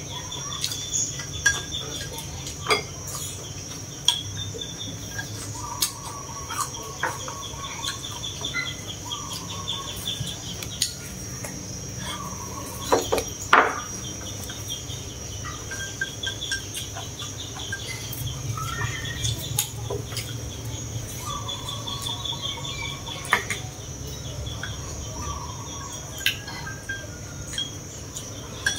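Chopsticks clicking and tapping against porcelain rice bowls as two people eat, with the loudest clicks about halfway through. Behind them a steady chorus of crickets and other insects, a few short bird calls and a low steady hum.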